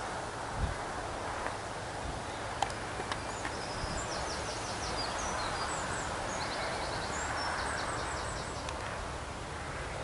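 Steady outdoor ambience with a low rumble, and a small bird singing short, high, rapid trills through the middle.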